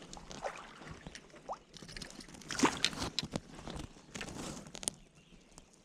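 Close handling noises: irregular clicks, knocks and rustles, busiest in the middle, as a fish deep-hooked on a treble-hook lure is worked at to free the hook.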